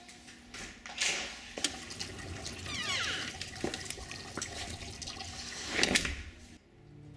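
A front door opening with a few clicks and knocks, and a footstep out over the threshold, against the steady trickle of a small garden fountain. A louder rushing swell comes just before six seconds in.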